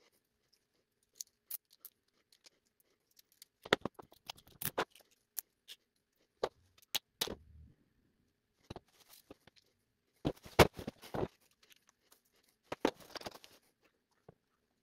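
Small parts being handled on a desk: scattered clicks, taps and light knocks of 3D-printed plastic pieces and a small motor being picked up and set down, in four short clusters with quiet between.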